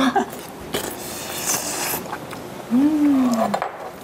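Eating noises from someone tasting a hot pot for a second or so, then an appreciative closed-mouth 'mmm' about three seconds in, rising and then falling in pitch.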